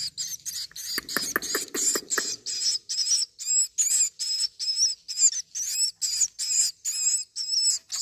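Swiftlet nestling calling in a fast run of short, high-pitched chirps, about three a second, as it is touched in its nest. A scratchy noise comes under the chirps in the first couple of seconds.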